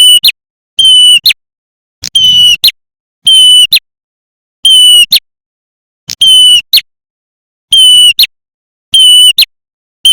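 Lure recording of a prinia (prenjak) call: a short, high call of about half a second, each ending in a sharp click, repeated about every 1.3 seconds with dead silence between.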